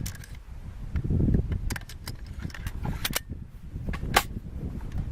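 Sharp metallic clicks and clacks as a CMMG .22 LR conversion bolt is fitted into an AR-15 rifle in place of its bolt carrier, over low rustling from handling the gun.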